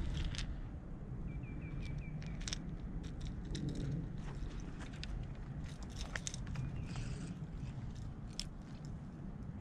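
Rustling and handling noise with scattered clicks over a steady low rumble, and a faint quick run of short chirps about a second in.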